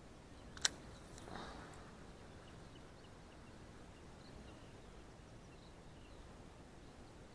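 Quiet open-water ambience with a few faint, high bird chirps. About half a second in there is one sharp click, followed soon after by a brief soft rush.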